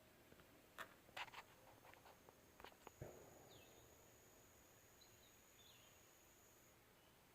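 Faint outdoor ambience by a creek. A few light clicks and a soft knock come in the first three seconds, then a thin, steady high-pitched tone runs for about four seconds, with a few faint chirps.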